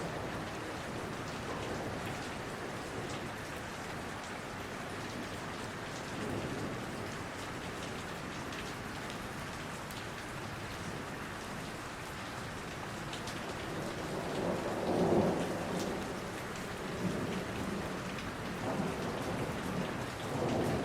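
Steady rain falling in a forest, with many separate drops ticking, and thunder rumbling in several swells, the loudest about two-thirds of the way through.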